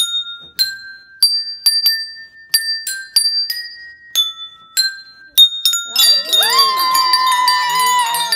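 Handheld metal tube chimes, each one note, struck one at a time to pick out a tune; each note rings on briefly. About six seconds in, many chimes ring at once and a voice comes in over them.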